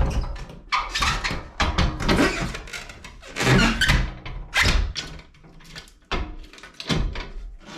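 Metal wall safe being pushed and shifted into a wooden-framed wall opening for a test fit: a series of irregular thunks and scraping as the steel box rubs and knocks against the frame.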